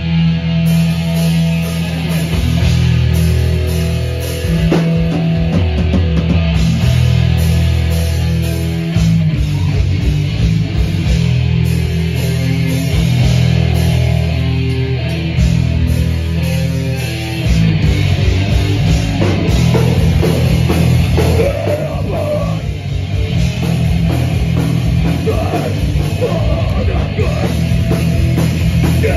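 Live hardcore band playing: heavily distorted bass and guitar chords over a drum kit, with vocals. The riff changes about nine seconds in, and a faster, choppier part starts a little past halfway.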